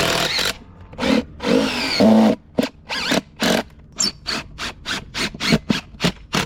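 Cordless drill-driver run in many quick trigger bursts, about three a second, its motor whirring up and down as it drives screws.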